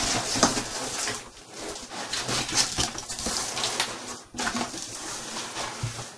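A shipping box being opened and its packaging handled: continuous rustling and crinkling with scattered clicks and knocks.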